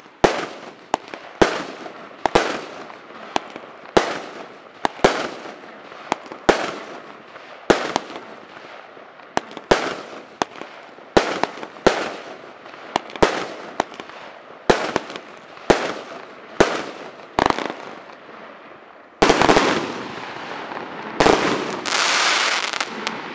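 Weco 'Hurricane' fireworks cake firing shot after shot, with sharp launch reports about one or two a second. In the last few seconds it goes into a dense, louder finale of continuous crackling.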